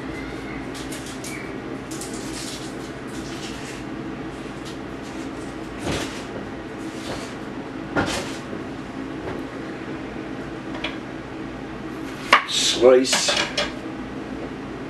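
Kitchen knife knocking and scraping on a cutting board while an onion is prepared, with scattered knocks and a louder burst of clatter near the end, over a steady low hum.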